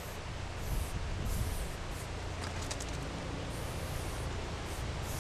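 Wind buffeting the microphone with a steady low rumble, overlaid by several short hisses of an aerosol spray-paint can sprayed in intermittent bursts.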